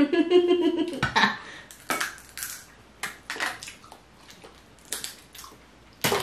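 Shellfish shells from a seafood boil cracking and crunching as they are broken open by hand, in a string of sharp snaps at irregular intervals, the loudest near the end. A brief voice is heard in the first second.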